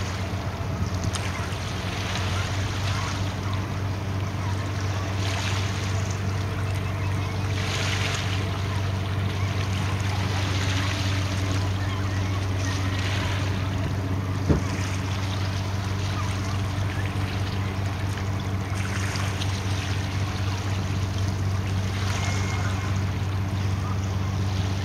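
Large car ferry's engines running with a steady low drone, water sloshing and splashing in surges every couple of seconds over it, and a single sharp click about halfway through.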